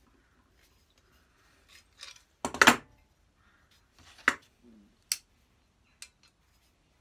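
Metal clinks and clicks from a vintage Record 151 spokeshave being taken apart by hand as its adjuster nuts and threaded studs are worked loose. About five separate clicks, with the loudest clatter about two and a half seconds in.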